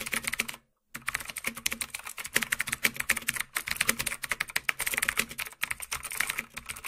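Computer keyboard typing sound effect: fast, dense key clicks, with a short pause just under a second in.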